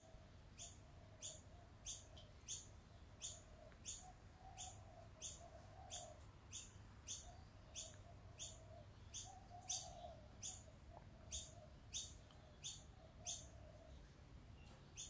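A small bird chirping over and over, faint: one short, high, falling note repeated evenly about every two-thirds of a second.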